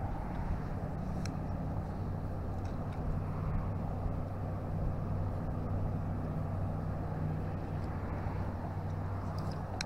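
An engine running steadily, a low even hum over a wash of noise, with a few faint clicks.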